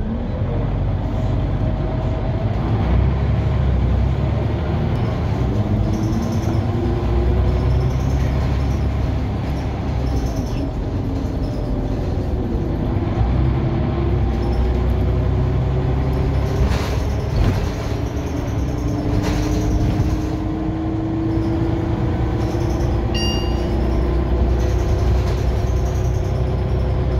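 Onboard sound of a Scania OmniCity CN94UB single-deck bus under way: its diesel engine and transmission run with a steady low rumble, their pitch rising several times as the bus accelerates. A couple of knocks come from the body past the middle, and a short high beep sounds near the end.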